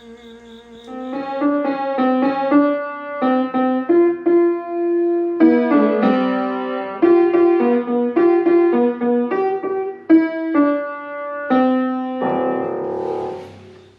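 Piano or keyboard music, a melody of quick separate notes, with a noisier wash near the end.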